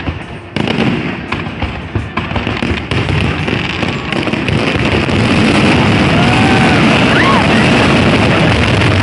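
Aerial fireworks display: many shells bursting in quick succession with crackling, building into a loud, steady barrage about five seconds in.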